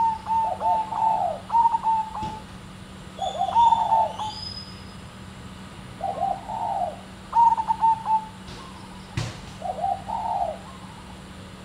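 Zebra dove cooing in short phrases of quick, staccato notes, a phrase every two to three seconds. There is a single sharp click about nine seconds in.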